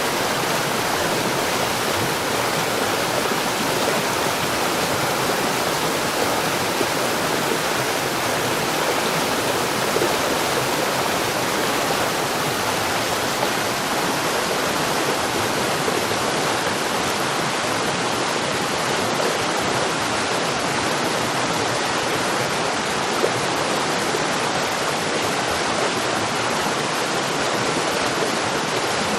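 Water flowing steadily, a continuous even rush like a stream or small waterfall.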